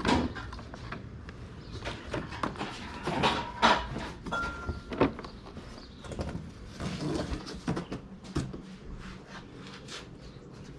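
A string of knocks, clicks and rattles from objects being picked up and set down, with the loudest knocks about three and a half and five seconds in.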